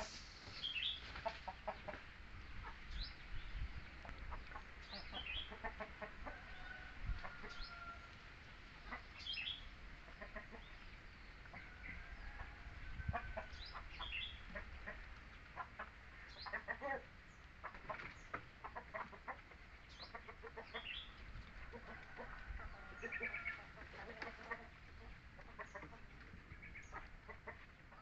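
Scattered short animal calls, many brief and some high-pitched, coming every second or two over faint background noise.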